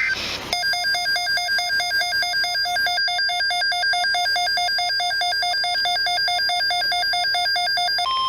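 Weather radio receiver's electronic alert alarm: a loud, fast warbling beep alternating between two pitches about four times a second. It signals that a new warning is coming in. Near the end it gives way to the steady single-pitch NOAA Weather Radio 1050 Hz warning alarm tone.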